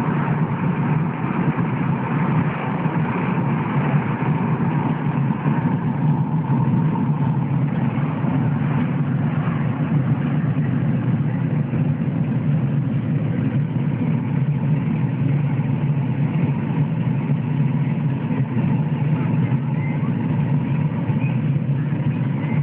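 Car driving, heard from inside the cabin: a steady rumble of engine and road noise.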